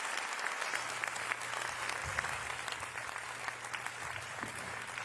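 Audience applauding, a dense steady clapping after a stage introduction.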